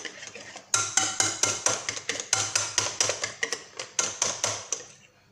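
Wire whisk beating thick zlabia batter in a glass bowl, the wires clinking rapidly against the glass at about five strokes a second, then stopping shortly before the end.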